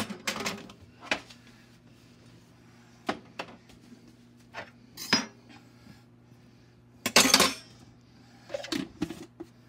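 Kitchen containers, jars and dishes being handled and set down on a countertop: a series of separate clinks and knocks, with a longer rattle about seven seconds in. A faint low hum runs underneath.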